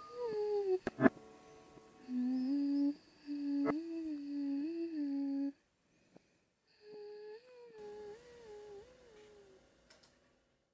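A voice humming a slow, wordless tune in short held phrases, stepping between notes, with a pause just past the middle; a few sharp clicks sound near the start.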